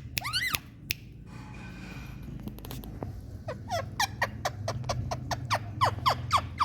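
Indian ringneck parrot calling: two short arched squawks at the start, then from about three seconds in a quick run of short, sharp calls, each sliding downward, about three a second and growing louder.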